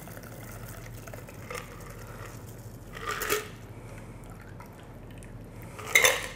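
Shaken margarita trickling quietly from a stainless steel shaker tin through a fine strainer into a cocktail glass, with a brief louder rustle about halfway through. Near the end come sharp metallic clinks of the strainer and tin.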